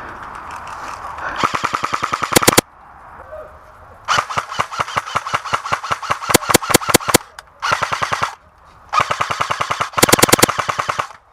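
Airsoft guns firing in full-auto bursts of rapid cracks at roughly ten shots a second. There are four bursts in all, and the longest, about three seconds, comes in the middle.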